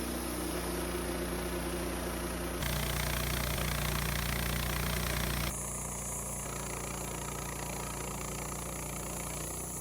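Woodmizer LT15 sawmill running, its band blade cutting through an incense cedar log and leaving a rough cut. The sound jumps louder and hissier about two and a half seconds in, then drops back about three seconds later.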